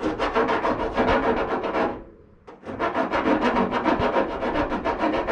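Hand abrading the truck's new hood: rapid back-and-forth rasping strokes, about eight to ten a second. The strokes pause briefly about two seconds in, then carry on.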